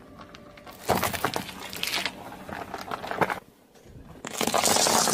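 A car tyre rolling over foil-wrapped sweets, crinkling and crunching them from about a second in. After a short lull, near the end, a second, louder spell of crackling crunches as a tyre rolls onto a pile of candy-coated chocolates.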